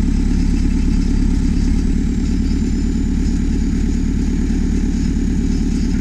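2007 JCB 4CX loader backhoe's diesel engine running steadily at idle, with an even low pulsing and no change in speed.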